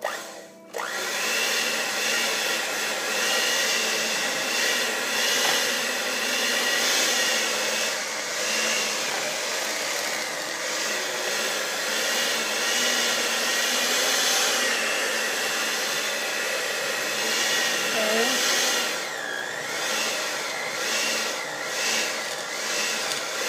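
Electric mixer beating cream cheese and sugar, switched on about a second in and running steadily with a whine that wavers in pitch.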